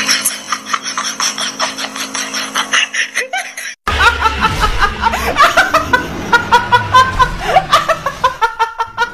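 Laughter: a quick pulsing laugh, then after a sudden cut about four seconds in, a young woman laughing loudly in a rapid, high ha-ha-ha with a low bass beat underneath.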